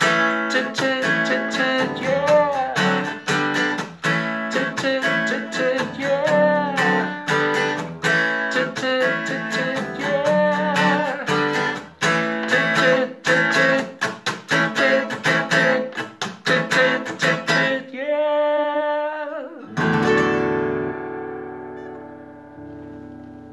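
Acoustic guitar strummed in a steady rhythm, with a man singing over it. About 20 seconds in a final chord is struck and left to ring out, fading away.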